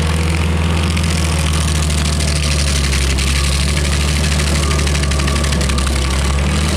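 Rayco RG50 stump grinder's engine running steadily at a constant pitch.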